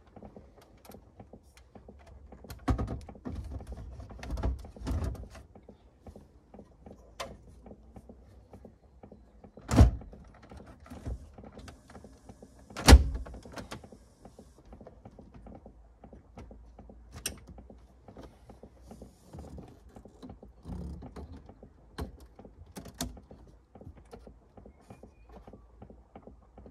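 Knocks, clicks and rattles of a Ford Territory ICC head unit being fitted into the dashboard and its plugs pushed home, with two sharp loud knocks a few seconds apart near the middle.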